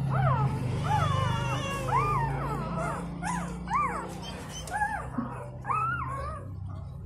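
Newborn puppies squealing, repeated short high cries that each rise and fall in pitch, growing sparser toward the end, over a steady low hum.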